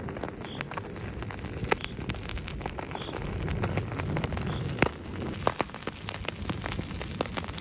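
Dry fuel tablets burning in a small folding camp stove under a foil-lidded food tin, giving irregular sharp crackles and ticks that come more often after about five seconds. Wind rumbles on the microphone underneath.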